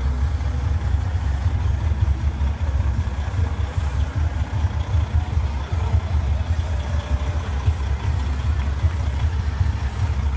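Diesel semi-truck tractor engine running at low speed as it pulls a heavy lowboy trailer past, a steady low rumble.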